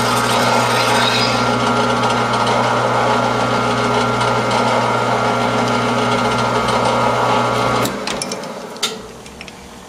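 Metal lathe running at speed with a steady motor hum and gear whine, spinning a clamped welded fitting on its faceplate. It is switched off about eight seconds in and winds down, with a few light clicks near the end.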